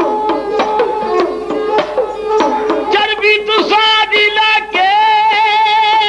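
Punjabi dhadi music: a sarangi playing a melody over quick dhadd drum strokes. The drumming drops back about three seconds in and the sarangi holds long, wavering notes.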